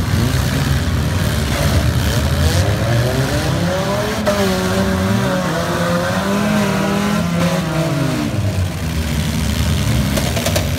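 Demolition derby car engines running hard. One engine revs up about three seconds in, holds high, then drops back near the eighth second.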